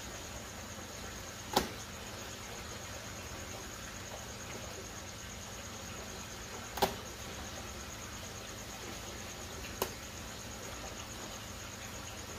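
Steady hiss of water pouring from a pipe into an aerated koi tub, with a continuous high pulsing insect trill like a cricket over it. Three sharp clicks stand out, at about a second and a half, seven and ten seconds in.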